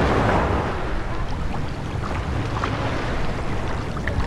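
Sea surf washing on the shore, with wind buffeting the microphone; the wash is strongest in the first second, then eases.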